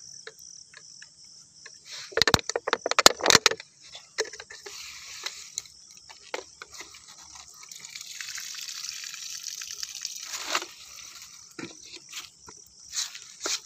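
Water being poured and splashed off a tub of small freshly caught river fish. A loud burst of splashing about two seconds in is followed by a softer, steadier rush of pouring water around the middle.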